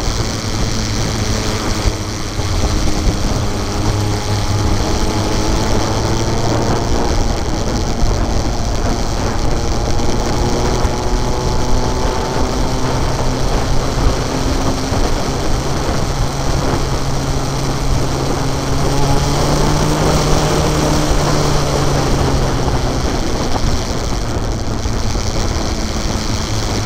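Motorcycle engine running at cruising speed with wind rushing over the bike-mounted microphone; the engine's pitch slowly rises and falls as the throttle changes through the curves.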